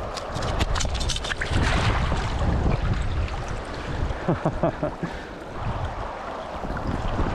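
Shallow river running over rocks, with wind on the microphone. A flurry of short splashes and clicks comes in the first two seconds, and a few brief gurgles near the middle.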